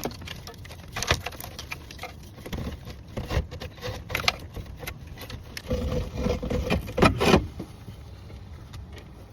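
Irregular metallic clinks, knocks and rattles of hand tools and parts being handled in a van's engine bay during an alternator replacement. The loudest knocks come around seven seconds in.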